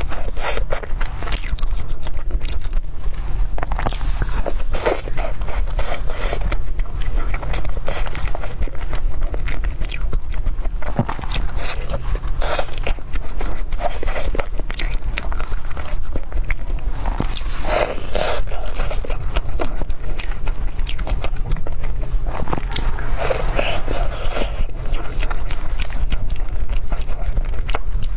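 Close-miked eating: bites into a flaky Chinese pastry and chewing, with many short crisp crackles from the crust and wet mouth sounds, over a steady low hum.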